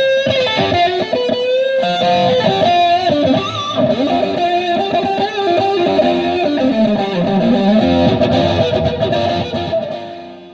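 Electric guitar playing a rock riff with sustained, bending lead notes through a Headrush pedalboard's amp modelling, fading out near the end.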